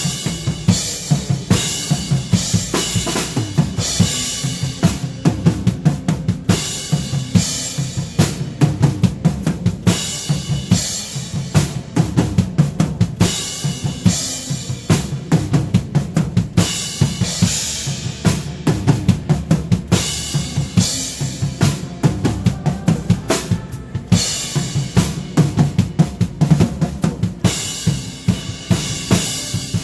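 Drum kit played at a steady tempo, bass drum and snare keeping a continuous beat with cymbals washing over it in recurring stretches, accompanying a praise song.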